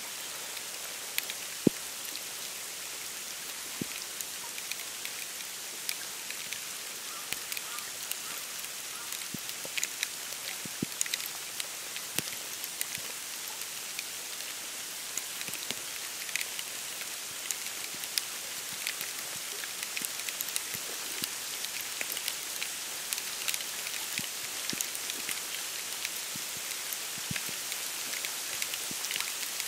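Wet snow falling on the dry reeds, leaves and water of a wetland: a steady soft hiss with many small irregular ticks of flakes and drops landing, and one sharper tick about two seconds in.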